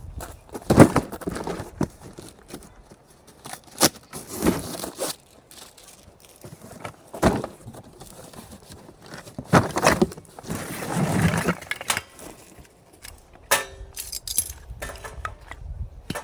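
Irregular knocks, clicks and rustling as gear is handled, with a longer rustle about ten seconds in.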